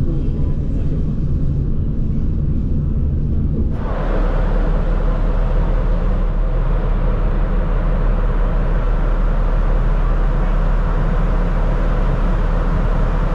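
Steady low rumble and rushing noise of a running vehicle or ship engine. About four seconds in it shifts abruptly to a louder, broader rush with a deep hum underneath.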